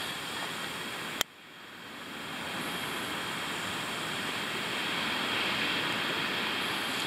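Strong wind blowing over the microphone, a steady rushing noise. About a second in comes a single sharp click, after which the noise drops away and builds back up over the next couple of seconds.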